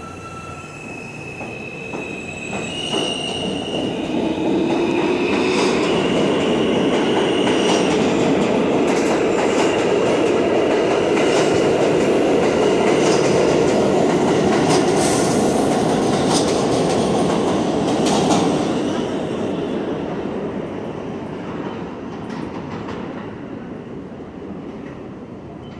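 New York City subway train pulling out of the station and accelerating past. Its motor tones climb in pitch at the start, and the running noise swells with wheel clatter over rail joints and some high wheel squeal. It fades as the last cars leave.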